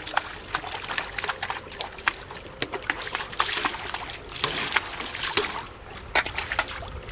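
Water splashing and sloshing in a shallow muddy canal, with many small sharp clicks and ticks and two louder splashy surges about three and a half and four and a half seconds in.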